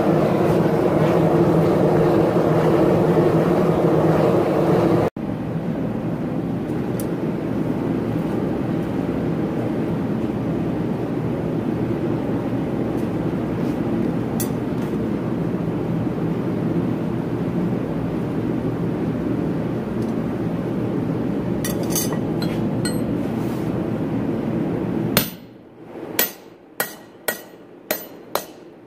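A steady rushing noise, like a burner or blower, with a brief break about five seconds in; near the end it drops away and a hammer strikes metal in a quick run of about seven blows, roughly two a second, each with a bright ringing clink.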